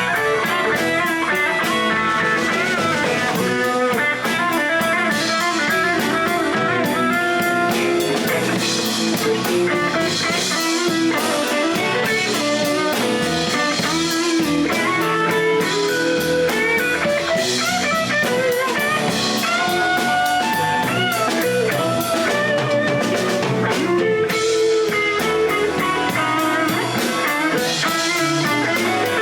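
A blues band playing live: guitar lines with bent notes over a drum kit.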